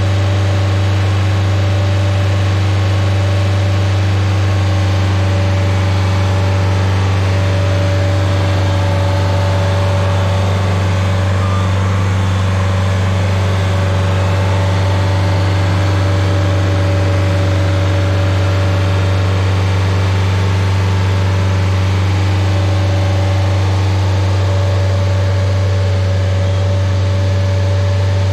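Engine of a Rayco Super RG50 stump grinder running steadily with an even, unchanging drone while the machine drives across the mulch.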